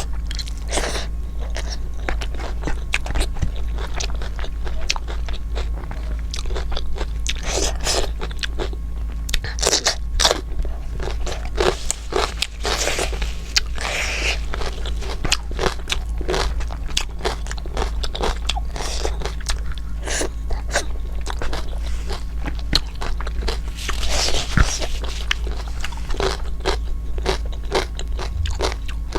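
A person eating: crunchy bites and chewing, many small crisp crackles one after another, over a steady low hum.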